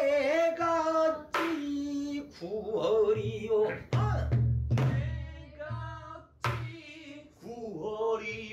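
A pansori phrase sung in a bending, ornamented voice to a buk barrel drum. The drum comes in from about a second in with several deep stick strokes that mark the rhythmic cycle (jangdan).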